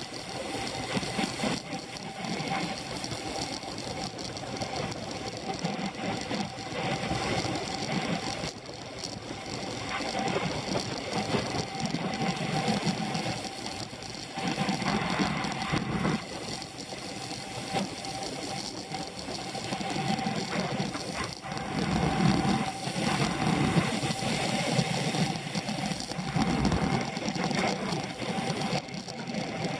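Road bicycles at race speed heard from a handlebar-mounted camera: a steady mechanical whirr of chain, drivetrain and tyres mixed with wind rush, swelling and easing every few seconds.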